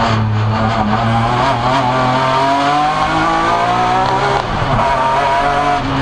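S54 3.2-litre straight-six in an E36 BMW M3 race car under hard acceleration, heard from inside the stripped cabin. The revs climb, drop sharply with an upshift about four and a half seconds in, then climb again and drop once more near the end.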